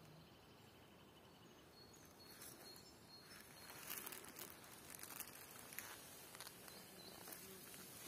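Near silence in woodland, with faint crackling rustles of leaves and dry leaf litter from about two and a half seconds in.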